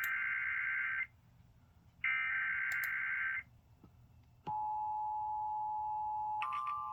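Emergency Alert System tones on a radio broadcast: a SAME header data burst, a harsh buzzing screech, ends about a second in, and a second burst runs from about two seconds to three and a half. The steady two-tone EAS attention signal then comes on about four and a half seconds in, announcing an emergency alert activation.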